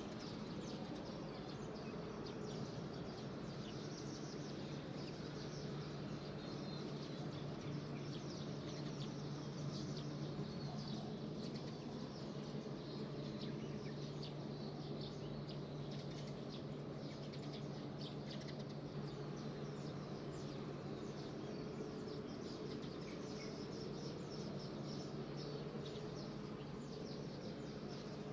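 Many small birds chirping and twittering in short, scattered calls, over a steady low hum and a soft background hiss.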